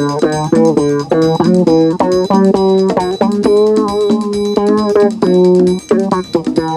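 Jazz-funk instrumental music from a 45rpm seven-inch record: plucked guitar and bass lines over a steady beat, with a few longer held notes around the middle.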